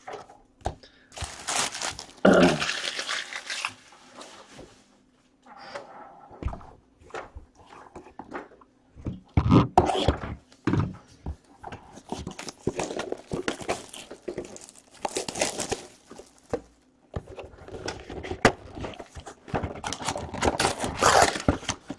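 Basketball trading cards and foil packs being handled: irregular rustling and crinkling of the packs and cards, with light thunks as things are set down and picked up from the box.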